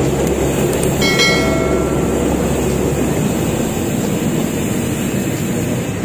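A passenger train running close by, a loud steady rumble, with a brief high tone about a second in.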